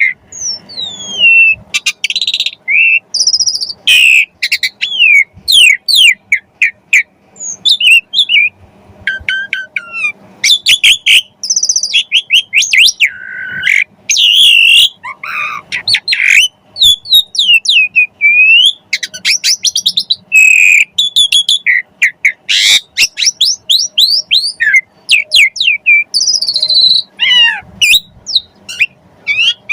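Javan pied starling (jalak suren) singing continuously in full 'gacor' mode: a rapid, varied string of loud whistles, rising and falling sweeps and short chirps, with the mimicked phrases ('isian') typical of a well-trained bird worked in.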